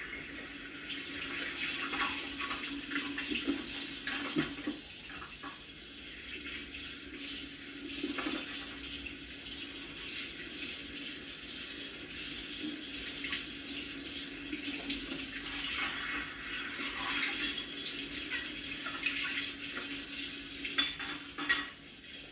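Kitchen tap running into a sink as dishes are washed by hand, with scattered light clinks and knocks of dishware.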